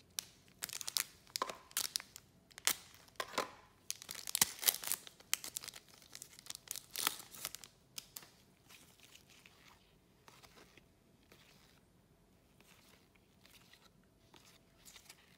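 A Panini Fortnite Series 2 foil trading-card pack being torn open, its wrapper crackling and crinkling in a run of sharp, loud crackles over the first half. Then only faint soft ticks as the cards are handled.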